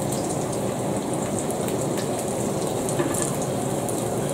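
Haggis slice and tattie scone frying in hot fat in a pan, sizzling steadily with many small crackles and pops.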